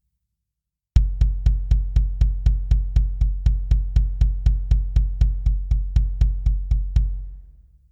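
Bass drum (kick drum) struck in a fast, even run of about four to five hits a second. It starts about a second in and stops about seven seconds in, the last hit fading out.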